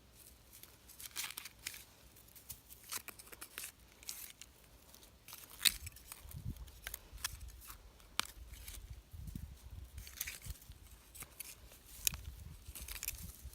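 Irregular rustling and scraping with sharp clicks and snaps, the sound of close-up handling of dry material, with a few low thumps from about halfway.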